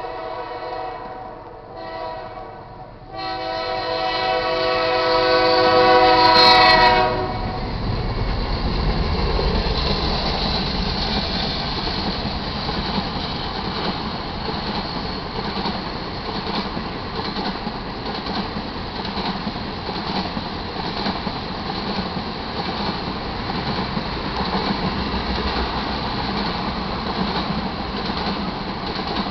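Diesel locomotive horn on BNSF C44-9W 4335 sounds for a grade crossing: a long blast, a short one, then a last long blast that grows loud as the locomotive reaches the crossing. After the horn stops, a long string of ethanol tank cars rolls by with a steady rumble and wheel clatter.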